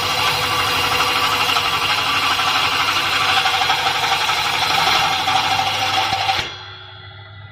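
Homemade table saw driven by a washing-machine motor, running loudly with a dense whirring buzz. About six seconds in it drops sharply to a low hum.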